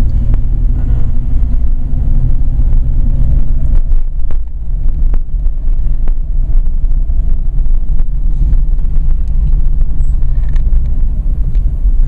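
Car cabin while driving: a steady low rumble of engine and road noise, with scattered light clicks.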